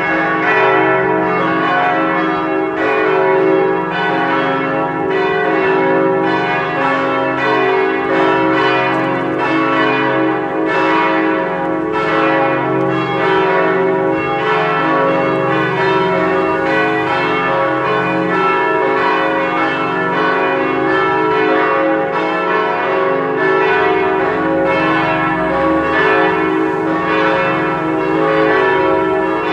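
Four church bells tuned C♯, E, F♯ and G♯ swinging in a full peal, their strikes overlapping in a continuous ringing with no pauses.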